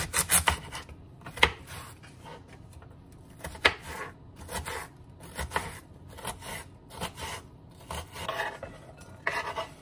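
Kitchen knife cutting a white onion on a bamboo cutting board: irregular crisp slices through the onion and knocks of the blade on the wood, the sharpest about one and a half seconds in and again near four seconds.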